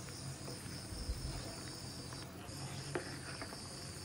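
Curry gravy boiling in a pan, faint bubbling and popping, under a steady high-pitched trill that drops out briefly about halfway through.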